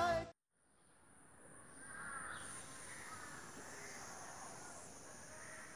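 Background song cuts off, then after a second of silence comes faint outdoor ambience: a few crows cawing and a steady high hiss.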